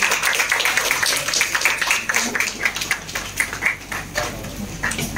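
A small group clapping, dense at first and thinning out over the second half into a few scattered claps.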